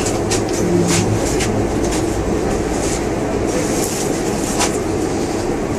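Steady hum and rumble heard inside a Moscow monorail car during a station stop, with scattered light ticks.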